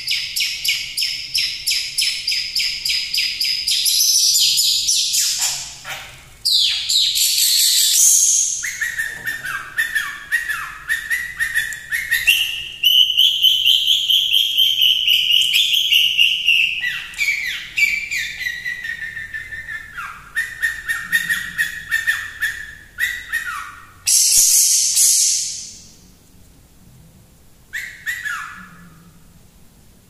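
Long-tailed shrike (cendet) song: fast chattering runs of sharp repeated notes, broken midway by slower whistled phrases that glide up and down. The singing stops about four seconds before the end, with one brief call after.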